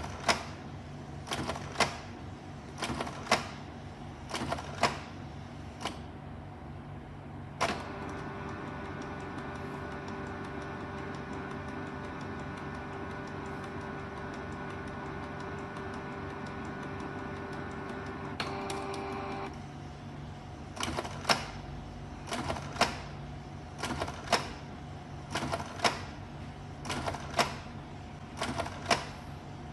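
Canon Pixma G2010 inkjet printer working through its print-head cleaning cycle: its mechanism clicks and clatters in short bursts about once a second. In the middle, a motor runs with a steady whine for about twelve seconds before the clicking resumes.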